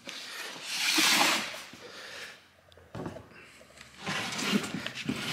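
Rustling of a cloth jacket against the camera as it is carried, then rustling and a few light plastic clicks as the carry handle of a car battery is lifted.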